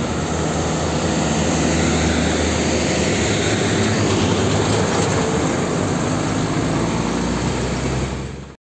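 Diesel engine of an old cab-over truck hauling a shipping container as it drives past, a steady low drone with road noise, a little louder midway. The sound cuts off suddenly near the end.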